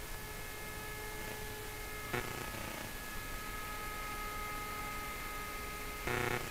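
Electric 450-size RC helicopter in flight: a steady whine of the motor and drivetrain, several pitches held together. A short thump comes about two seconds in, and a louder burst near the end.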